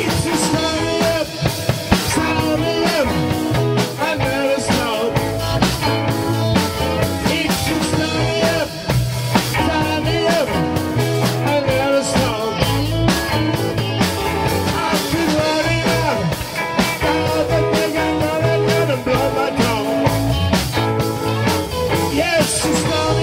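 Rock music played by a band with drum kit, electric guitars and a singing voice, over a steady drum beat.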